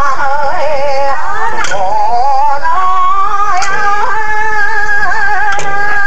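Traditional Japanese folk singing played from a cassette tape, long held notes that waver and slide between pitches, with a sharp tap about every two seconds.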